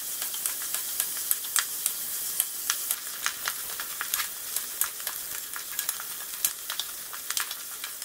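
Sliced onions sizzling in hot coconut oil in an aluminium pressure cooker while being stirred with a wooden spatula: a steady frying hiss with frequent sharp ticks as the spatula scrapes and knocks the pot.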